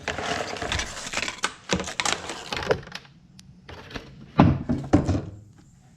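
Packaging and parts being handled as a box is unpacked: busy rustling and clatter for about three seconds, then a few sharp knocks near the end.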